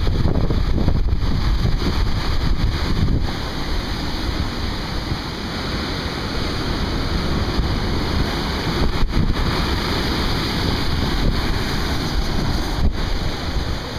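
Ocean surf rolling and crashing into a narrow rocky inlet, a continuous heavy rush with a deep rumble, with wind buffeting the microphone.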